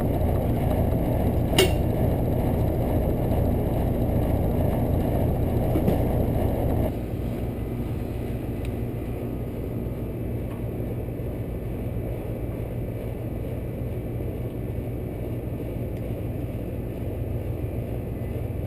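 Three-ton air-conditioning condensing unit running, its compressor and condenser fan giving a steady low hum, after its tripped breaker was reset. A single sharp click comes about a second and a half in, and the sound drops a little in level about seven seconds in.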